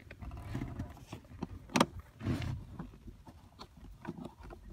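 Hand screwdriver working a screw into a car's under-dash speaker panel: scraping and rasping of metal on the screw head, with a sharp click about two seconds in.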